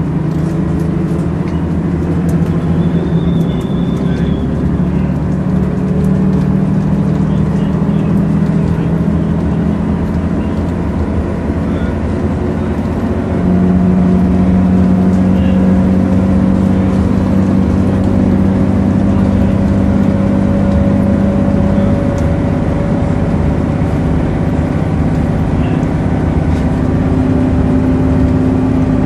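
Volvo Citybus double-decker under way, heard from inside the saloon: a steady engine and drivetrain drone with a fainter whine that slowly rises in pitch as the bus gathers speed. It gets louder about halfway through.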